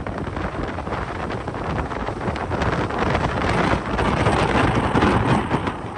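Hurricane storm surge churning and breaking around a raised building, with strong wind buffeting the microphone. The rushing noise swells louder about three and a half seconds in, then eases near the end.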